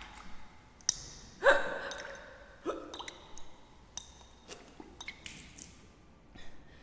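A woman hiccuping: a sharp, voiced hiccup about a second and a half in, the loudest sound, and a smaller one about a second later. Scattered small clicks and drips are heard around them.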